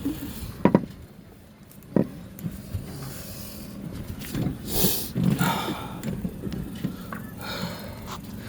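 Screwdrivers prying at an aluminum mast-base ring: a few sharp metal clicks and scrapes, with heavy breathing from the effort.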